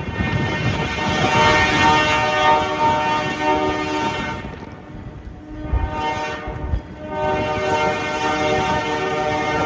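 Diesel locomotive air horn on an ALCO C424 sounding a steady multi-note chord in blasts: a long blast, a short one about six seconds in, then another long blast held near the end, over the low rumble of the locomotive.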